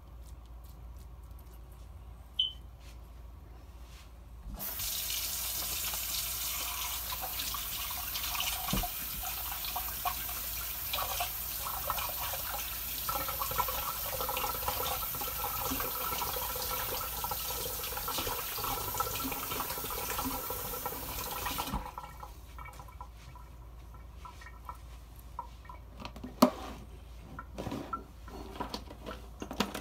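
Kitchen tap running into a sink, a steady rush of water that starts suddenly about four seconds in and is shut off suddenly some seventeen seconds later. A few sharp knocks follow near the end.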